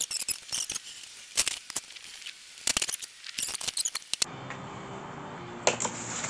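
Crinkling and crackling of a thin foam packing sheet being pulled and crumpled off a new electric minibike, in quick irregular bursts. The crackling cuts off abruptly about four seconds in, leaving a quieter steady background.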